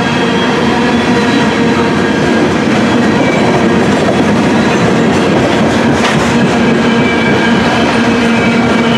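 Freight train's covered hopper cars rolling past: a loud, steady din of steel wheels on rail, with a constant ringing hum running through it.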